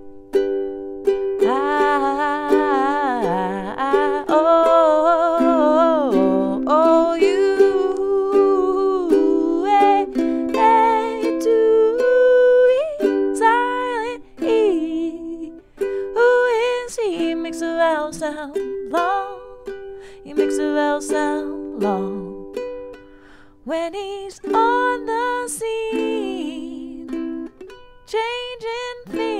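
A woman singing a simple song, accompanying herself on a strummed ukulele.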